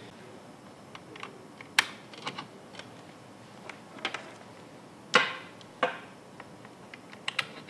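Scattered clicks and knocks of test-lead plugs being pushed into a digital multimeter's input jacks and the leads being handled, the loudest knock about five seconds in.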